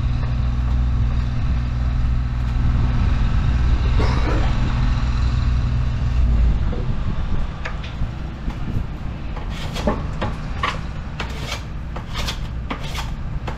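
A steady low hum for the first half. From about ten seconds in, a quick run of short scraping strokes, roughly two a second, as a wooden board is shaved down.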